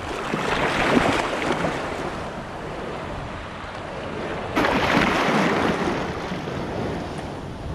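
Sea water splashing and washing around the camera at the surface, with small surf waves breaking. A louder rush of water starts suddenly a little past halfway and eases off toward the end.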